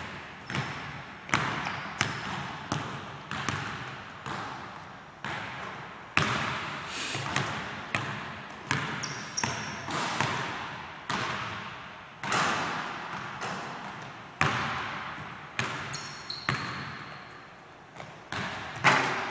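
Basketball being dribbled on a hardwood gym floor, bouncing at an uneven pace of about one to two bounces a second, each bounce echoing in the large hall. A couple of short high squeaks come in between the bounces.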